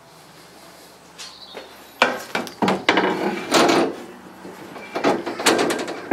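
Metal clatter and knocks as a spoked wheel rim is set into a blast cabinet, knocking against the cabinet's metal grate and walls in several bursts starting about two seconds in.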